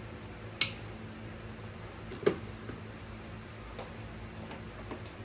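Two sharp clicks about a second and a half apart, then a few faint ticks, over a steady low hum: small parts being handled during scooter wiring work.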